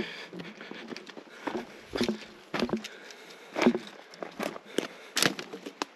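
Footsteps crunching and scuffing on loose rock and dry dirt while descending a steep slope, uneven steps about once a second.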